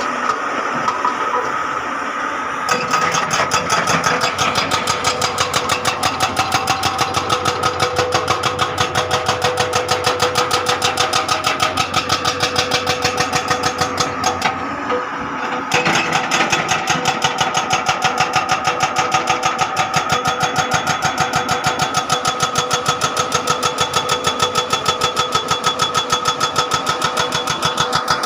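Hydraulic excavator's diesel engine running steadily with a rapid even pulse, about five beats a second; the sound briefly changes about three seconds in and again around the middle.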